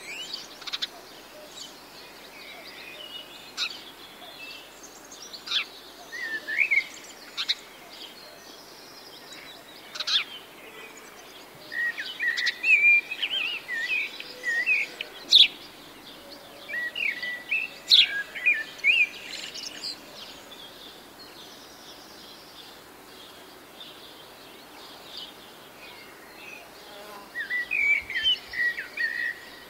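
Small birds chirping in short, scattered notes and little pitch glides, busiest in the middle and again near the end with a quieter lull between, over a faint steady background hiss.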